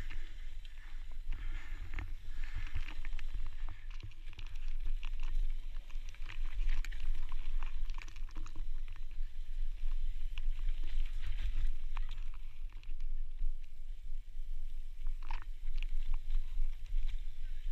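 Mountain bike riding down loose, dry dirt singletrack: tyres crunching over dirt and stones, with many scattered clicks and rattles from the bike, over a steady low rumble of wind and vibration on the microphone.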